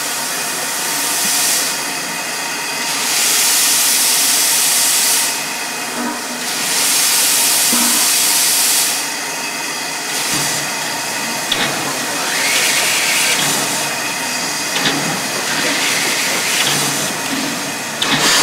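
Steam locomotive venting steam: two loud, long hisses of about two seconds each early on, over a steady lower hiss, then quieter hissing with a few sharp clicks.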